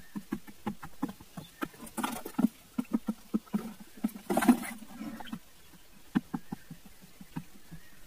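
Quail scrabbling and pecking around a grain-baited pit trap: a run of quick, irregular light taps, with short rustling flurries about two seconds in and again around four and a half seconds as the birds crowd into the pit.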